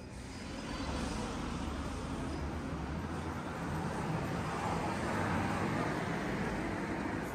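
A road vehicle passing on the street: its tyre and engine noise swells over several seconds and eases slightly near the end.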